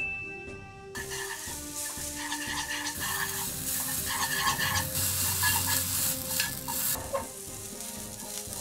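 Minced pork sizzling as it fries in a small nonstick frying pan, stirred with wooden chopsticks. The sizzle starts about a second in, is loudest in the middle and eases off near the end.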